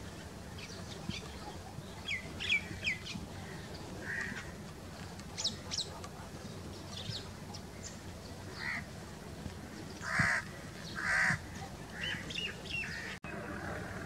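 House crows calling, two loud caws close together late on, over scattered high, quick chirps of small birds and a low steady background rumble.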